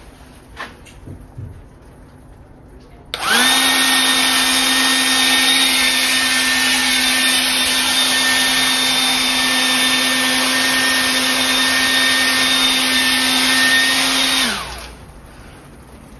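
Cinnamoroll auto bubble gun's motor and fan whirring steadily as it blows a stream of bubbles. It spins up quickly about three seconds in and winds down, falling in pitch, near the end. A few small clicks come before it.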